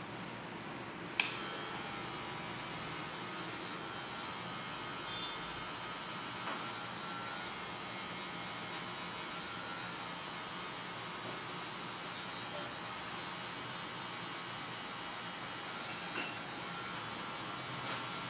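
Electric hair clipper switched on with a click about a second in, then running with a steady buzzing hum as it cuts hair at the side of the head.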